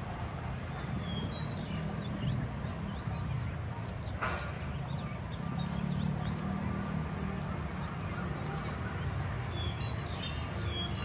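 Urban park ambience: a steady low rumble of city traffic under birds chirping and whistling, with one sharper call about four seconds in.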